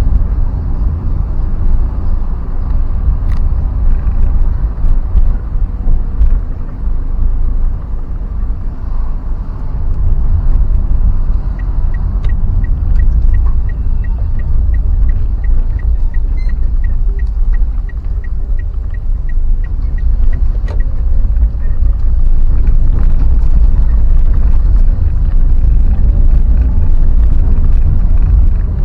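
Loud, steady low rumble of a moving road vehicle, with wind and road noise on the microphone. In the middle a faint, even ticking runs for about nine seconds, about three ticks a second.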